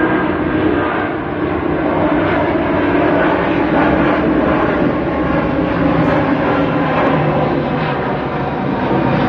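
Airbus A330's twin jet engines at takeoff power as the airliner climbs out overhead: a loud, steady roar with a faint hum of tones in it.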